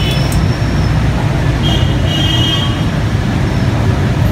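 A steady, loud low rumble, with a brief faint high-pitched tone about two seconds in.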